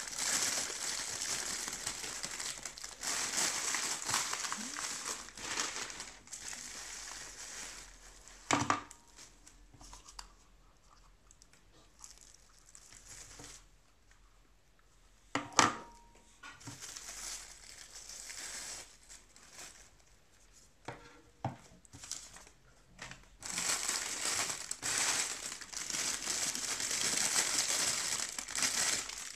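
Clear plastic bags crinkling and rustling as handheld microphones and their parts are unwrapped by hand, loudest for the first several seconds and again near the end, quieter in between. Two sharp knocks break in, about nine seconds in and again about sixteen seconds in.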